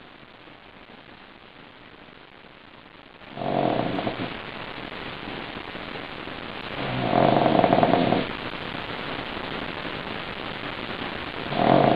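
Sleeping pug snoring: three loud, rattling snores about four seconds apart, starting about three seconds in, with quieter breathing noise between them.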